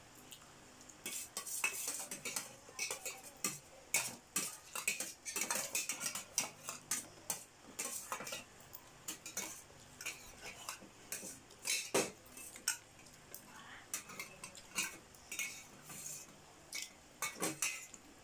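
Metal spoons and forks clinking and scraping on stainless steel plates in many quick, irregular strokes.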